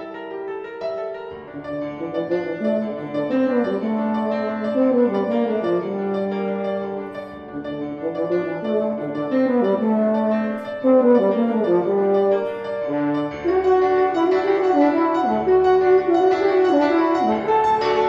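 Euphonium playing a quick-moving solo line of short, connected notes, with piano accompaniment underneath, getting louder through the passage.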